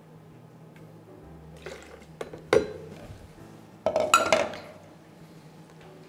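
Glass and ceramic kitchenware being set down and handled on a counter: a few light knocks, a sharp clink about two and a half seconds in, and a cluster of ringing clinks about four seconds in.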